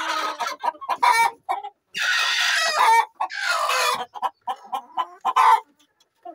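A flock of domestic chickens clucking in short, sharp calls, with two longer, louder calls about two and three and a half seconds in.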